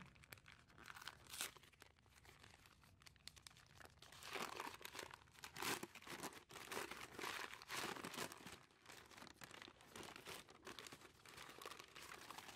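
Brown kraft paper crinkling and rustling as hands unwrap metal plates from it. The crinkles are irregular and loudest from about four to ten seconds in.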